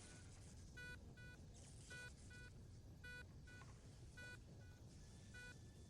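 Faint hospital ambience: a patient monitor's short electronic beeps, often in pairs about a second apart, over a steady low background hum.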